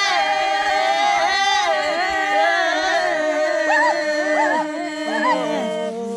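Several voices singing together without instruments: overlapping held notes that waver in pitch.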